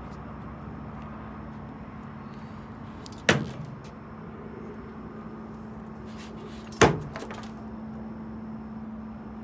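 Two heavy thuds about three and a half seconds apart: a hooked snake being slammed down onto the boards of a wooden dock at the end of a fishing line. A steady low hum runs underneath.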